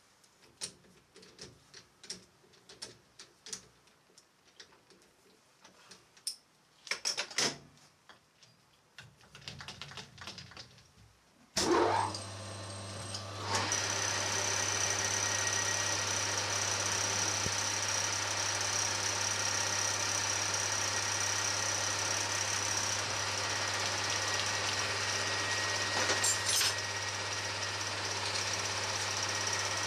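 Scattered clicks and knocks as a part is fitted into a metal lathe's chuck, then about halfway through the lathe starts with a sudden jump in level and runs steadily with a low hum and a high whine.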